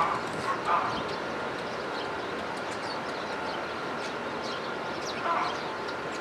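Small birds chirping: many short, high, falling chirps scattered throughout over a steady background hiss. A few louder, lower-pitched short calls come right at the start, just under a second in, and again about five seconds in.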